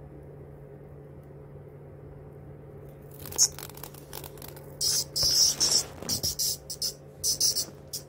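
Male hairy cicadas held in the hand giving a string of short, irregular buzzes, the kind of squawk a handled male cicada makes, starting about three seconds in; a faint steady hum runs underneath.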